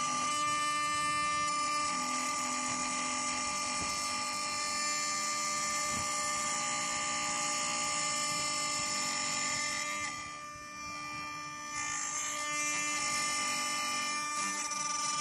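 ART1325R CNC router spindle running with a steady high whine as its cutter carves a wooden workpiece turning on the rotary fourth axis. The sound dips briefly quieter about ten seconds in.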